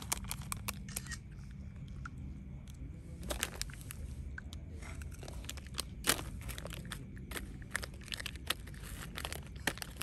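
Baby macaque crunching and chewing a wafer ice-cream cone: an irregular run of short crisp crunches, a few louder bites among them, with foil wrappers crinkling now and then.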